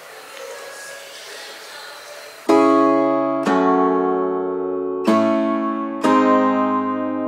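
Background music of strummed acoustic guitar chords. It comes in suddenly about two and a half seconds in, with a chord struck roughly every second and left to ring out.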